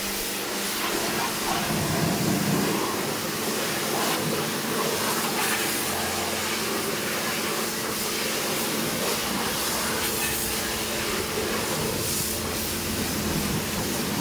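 High-pressure car washer spraying a steady jet of water onto a car's body panels and wheel arch, a continuous hiss, with the machine's pump motor humming steadily underneath.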